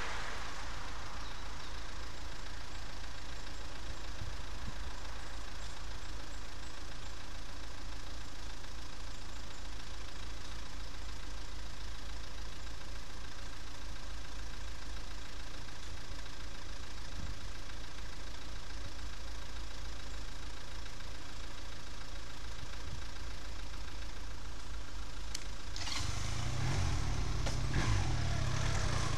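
Motorcycle engine running steadily at low revs, a low even pulse, while the bike creeps in a traffic queue. About 26 seconds in it grows louder and wind rush builds as the bike picks up speed.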